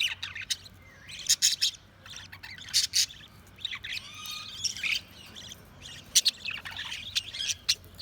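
Budgerigars chirping and warbling in short, irregular bursts, with occasional harsher squawk-like calls.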